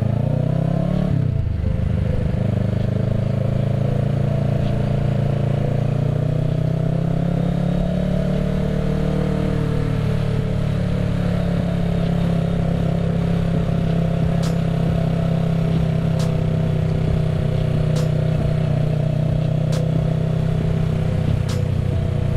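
2020 Kawasaki Ninja 650's parallel-twin engine through a Yoshimura Alpha carbon exhaust, rising in pitch as the bike pulls away in the first couple of seconds, then running at a steady low-speed cruise in town.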